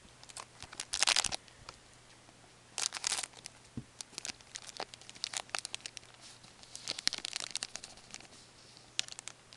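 Foil wrapper of a 2011-12 Upper Deck Artifacts hockey card pack being torn open and crinkled in short bursts, then a run of crackling and snapping as the pack is handled and the cards are pulled out.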